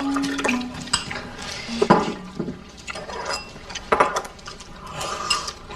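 Tableware clinking and knocking during a meal: utensils against dishes, in scattered separate strikes, with sharper knocks about two seconds in and about four seconds in.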